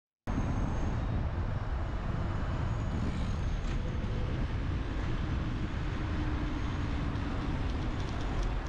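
Road riding sound from a bicycle-mounted camera: a steady low rumble of wind on the microphone with car traffic on a city road. It starts abruptly just after the beginning.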